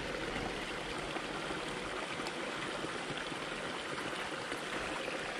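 Small woodland stream running steadily over rocks, an even rush of water.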